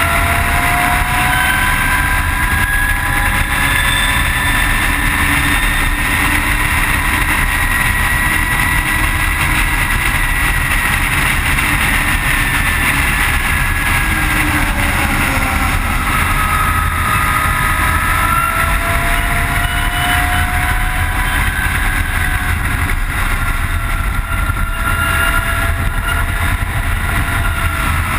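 Onboard sound of a Zero S ZF9 electric motorcycle at racing speed: the electric motor's whine slides up and down in pitch as the bike speeds up and slows, over heavy wind rush on the microphone and tyre rumble.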